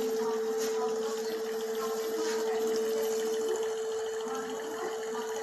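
Kent RO water purifier running: its pump hums under a steady, unbroken high-pitched alarm tone, the siren that the owner traces to a failing UV lamp.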